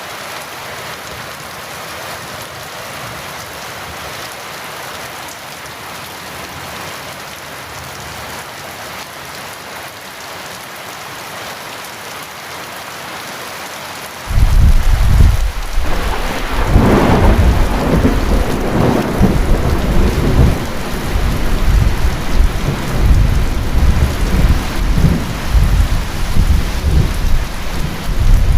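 Heavy rain falling steadily, then about halfway through a loud thunderclap breaks in suddenly and rolls on as deep rumbling thunder over the rain.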